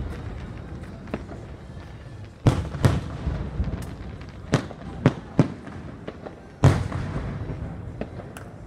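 Aerial fireworks shells bursting: about eight sharp bangs, the loudest about two and a half seconds in and again near seven seconds, each followed by a lingering echo.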